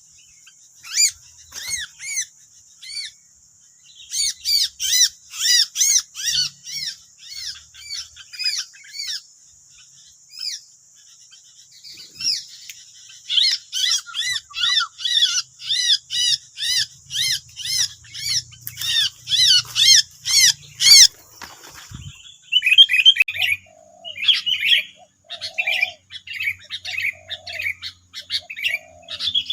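Sooty-headed bulbuls calling, a decoy bird and wild bulbuls answering it, in quick runs of short chirping notes. There is a lull near the middle, then a busy stretch. About two-thirds through, the calls change to a different, choppier pattern.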